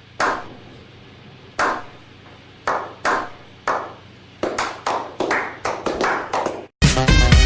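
A series of sharp claps: five spaced out over the first four seconds, then a quicker run of about ten.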